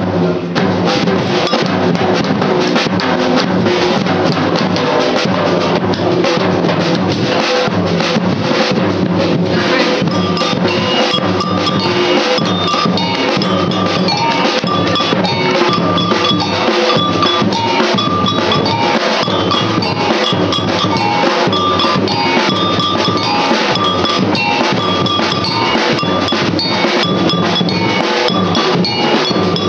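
A samba drum group playing a steady, dense rhythm on surdo bass drums and smaller stick-played drums. From about ten seconds in, a repeating high metallic bell pattern rings over the drums.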